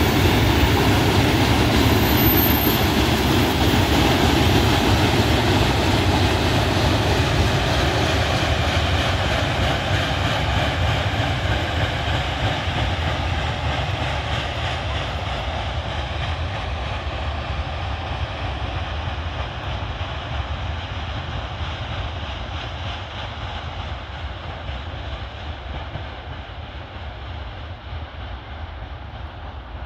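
Freight train of covered hopper wagons rolling on the rails, a continuous rumble of wheels on track that fades steadily as the train moves away.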